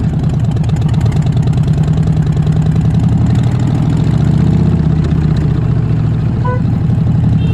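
Harley-Davidson Fat Bob 114's Milwaukee-Eight V-twin running through a Vance & Hines full exhaust system, a steady, low, pulsing exhaust note at moderate engine speed.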